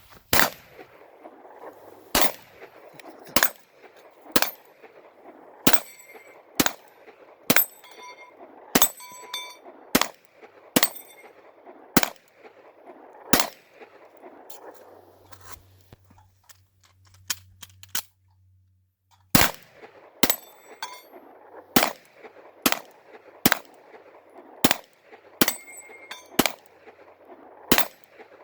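Pistol shots fired at a steady pace, about one a second, many of them followed by the short ringing ding of a steel target being hit. The firing stops for about six seconds midway, then resumes at a slightly quicker pace.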